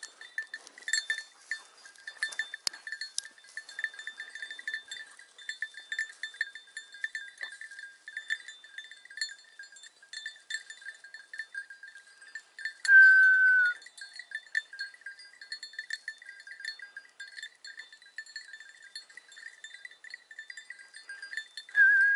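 Bell on a Segugio hunting hound's collar jingling steadily, with many small rapid tinkles, as the dog works through the grass. Two short, loud, slightly falling high notes stand out, one about halfway through and one at the end.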